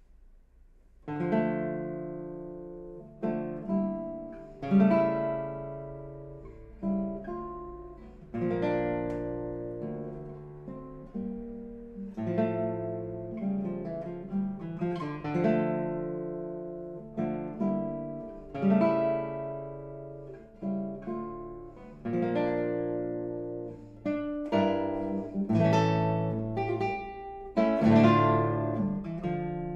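Nylon-string classical guitar played solo, starting about a second in with a series of ringing chords and plucked notes, each struck firmly and left to decay.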